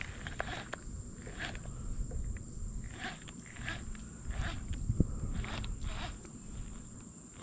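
Steady high-pitched insect drone, with short, irregular spurts of a baitcasting reel being cranked as a frog lure is retrieved.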